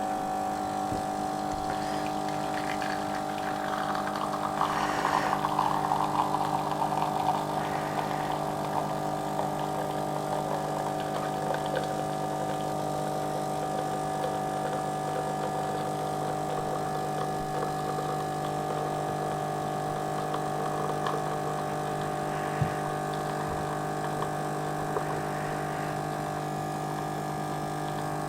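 De'Longhi Eletta bean-to-cup coffee machine running its pump as it brews, a steady hum, with a louder, rougher stretch of noise about four to eight seconds in.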